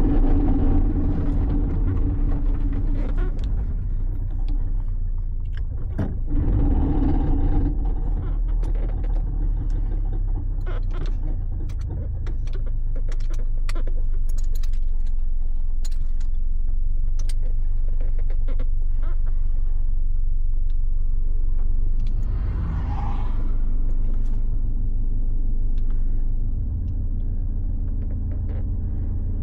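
Cabin sound of a turbocharged Subaru BRZ's flat-four engine running at low revs as the car rolls slowly, with irregular sharp clanks and knocks through the middle stretch: the driveshaft's universal joint has failed.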